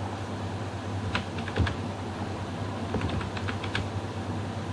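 Computer keyboard typing a number: a few separate keystrokes about a second in, then a quicker run of clicks around three seconds in, over a steady low hum.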